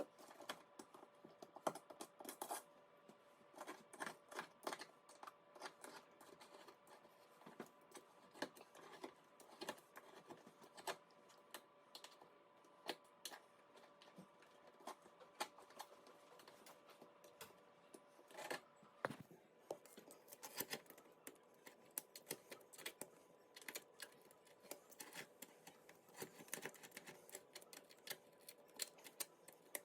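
Faint, irregular clicks and light taps of a hand tool working the grout of a tiled counter, over a steady faint hum.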